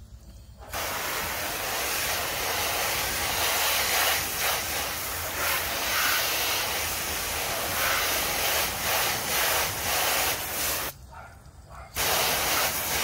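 Garden hose pistol nozzle hissing as it sprays a fine mist of water onto a car's lower side panel and the pavement, rinsing off dried mud. The spray starts about a second in, stops briefly near the end, then starts again.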